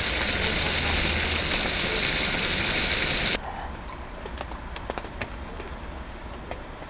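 Webfoot octopus sizzling and spattering in hot oil in a frying pan. The sizzle cuts off suddenly a little over three seconds in, leaving a quieter background with scattered small crackles.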